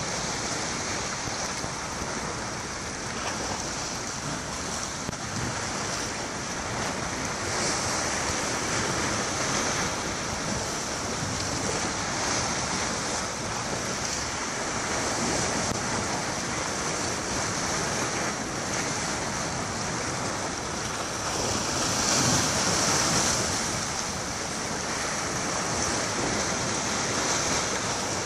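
Sea waves washing against a rocky shoreline, with wind blowing across the microphone. The noise swells a little about three-quarters of the way through.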